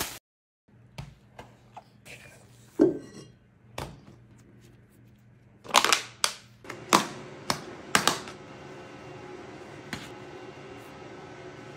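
A mixing bowl of pizza dough, turned upside down, knocks several times against a wooden butcher-block counter to free the dough, after lighter handling knocks and plastic-wrap crinkles. The sharpest knocks come in a cluster around the middle. A steady low hum comes in partway through.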